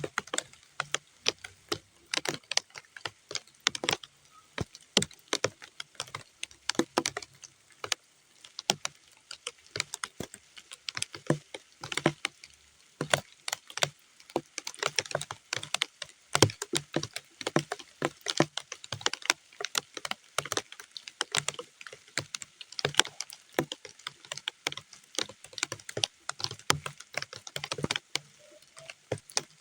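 Raindrops falling on muddy ground, heard as a dense, irregular patter of separate sharp drips and splats, several a second, with little steady rain hiss behind them.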